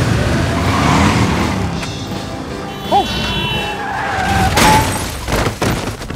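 Movie crash sound effects: car traffic noise with a short squeal about three seconds in, then several sharp impacts about five seconds in as a motorcyclist is hit by a car, over music.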